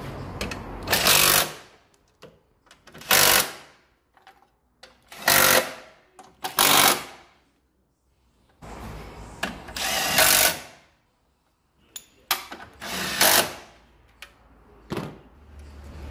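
Cordless power tool run in about seven short bursts, driving in the battery tray's bolts, with one longer run a little past halfway.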